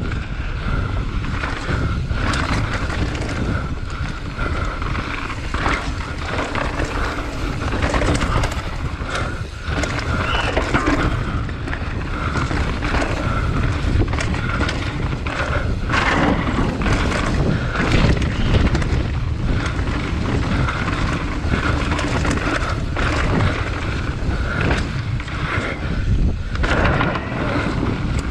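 Downhill mountain bike descending a dry dirt and rock trail at speed: wind rushing over the camera microphone and tyres rumbling on the dirt, with the bike rattling and knocking sharply over roots and rocks.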